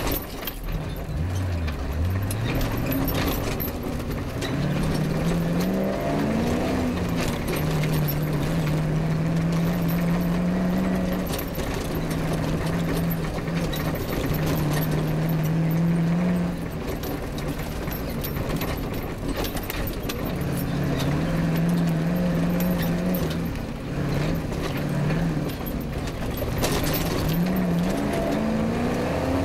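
Off-road rally car's engine pulling hard over rough ground, its note climbing in pitch as it accelerates and then holding steady. This happens a couple of times, with dips where the revs drop. Rattles and knocks from the car bouncing over the terrain run underneath.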